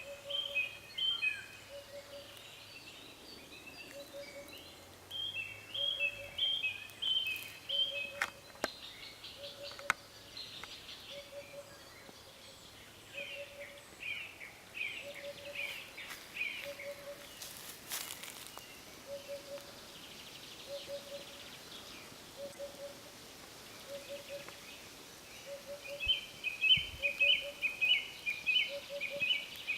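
Several songbirds singing in a forest, with quick chirping phrases that come and go and grow louder near the end. Under them a lower bird call repeats steadily about once a second the whole time.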